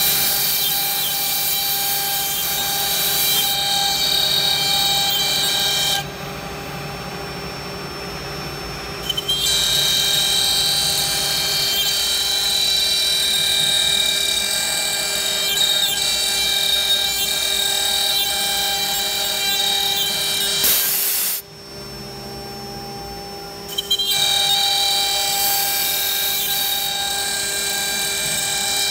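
CNC router spindle whining at a steady speed while its bit routes shapes out of an MDF board, with a high cutting hiss over the whine. Twice the sound drops and goes quieter for about three seconds before the full cutting noise returns.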